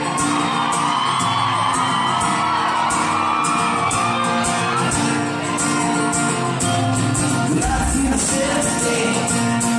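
A live pop-rock band plays a song on acoustic guitar, drums, bass and keyboard, with fans whooping and cheering over the music. It is heard from the audience in a large hall.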